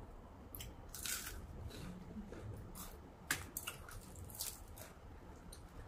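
Someone biting and chewing crispy fried fritters, with scattered small crunches and crackles and one sharper click about three seconds in.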